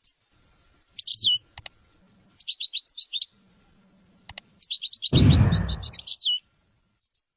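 Caged finches singing in short bursts of high chirps and twittering trills, with a loud burst of low rumbling noise lasting about a second, about five seconds in.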